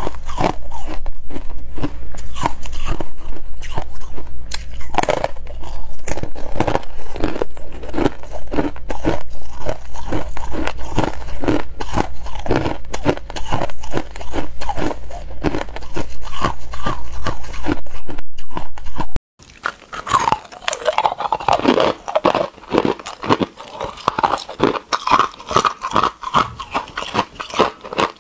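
Close-miked crunching and chewing of hard ice: bites into frosted ice slabs followed by a steady run of crunches. About 19 seconds in the recording cuts to quieter crunching of small ice cubes being chewed.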